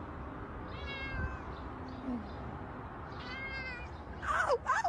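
A domestic cat meowing: two high, drawn-out meows, falling slightly in pitch, about two seconds apart, then a louder run of quick, sweeping calls near the end.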